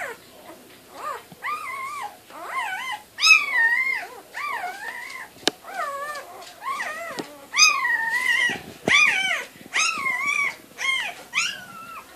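Newborn golden retriever puppies crying: a string of short, high whines and squeals that rise and fall in pitch, about one or two a second, several of them louder near the middle.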